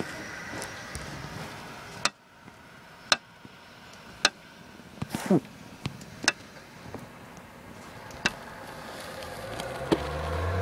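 Steady hiss of freezing rain and road traffic, broken by about seven sharp ticks roughly a second apart. Near the end a vehicle's low engine hum grows as it comes past.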